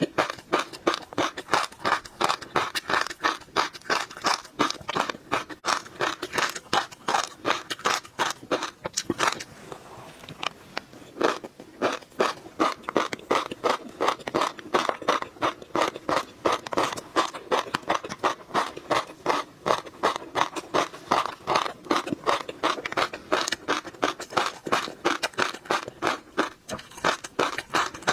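Close-miked chewing of tobiko (flying fish roe): rapid crunching with a dense run of small pops and clicks as the eggs burst, with a short pause about ten seconds in.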